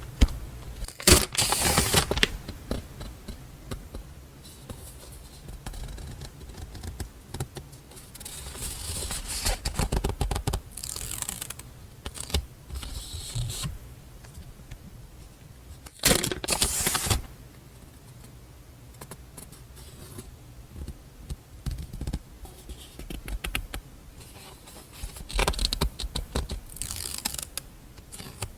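Paper stationery and its packaging being handled close up: rustling and crinkling in several separate bursts, with soft sliding and tapping of sheets between them.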